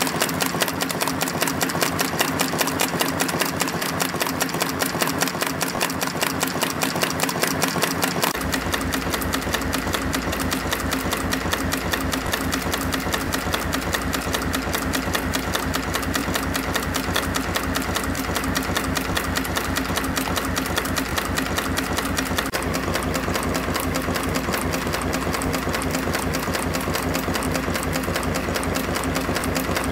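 YHM FB-220 CNC wire forming machine running at production speed, its forming slides and cutter making a rapid, steady mechanical clatter. It is forming V-shaped clips from 0.8 mm wire at about 300 parts a minute, some five strokes a second.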